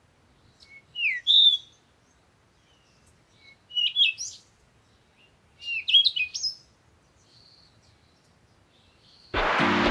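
A small songbird singing three short chirping phrases, each about half a second long and a couple of seconds apart. Music cuts in abruptly near the end.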